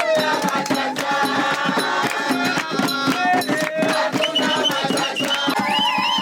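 Music with a steady drum beat and melody.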